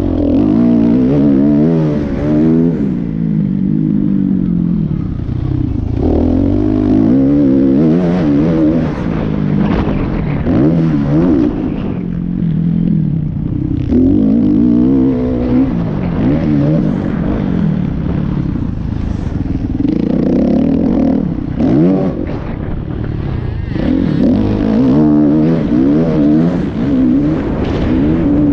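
Kawasaki KX450F motocross bike's four-stroke single-cylinder engine, heard from on the bike, revving up and dropping back again and again as the throttle is worked, with a few short easings of the throttle.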